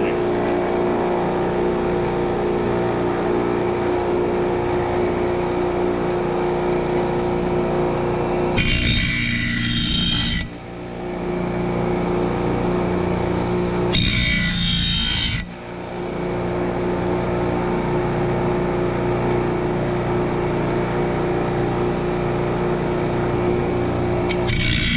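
Ryobi bench grinder running with a steady hum, its wire brush wheel spinning. Three times, a mower blade is held against the wheel for a second or two, giving a harsh scraping hiss as the buildup is brushed off the blade: about nine seconds in, again about fourteen seconds in, and near the end.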